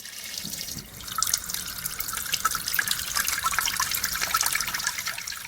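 Tap water running into a sink with irregular splashing and dripping as salad is washed under it, a little louder from about a second in.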